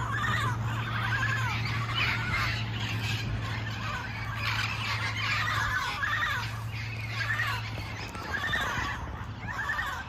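A flock of wild Amazon parrots calling over one another, many squawking calls overlapping without a break. This is the noisy chorus of the flock gathering at its communal roost at dusk.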